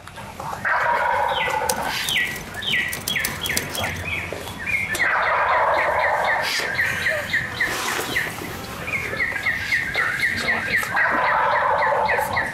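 Wild turkey gobbling three times: a gobble just after the start, one about five seconds in and one near the end. Between them another bird calls in runs of short, quick, falling high notes.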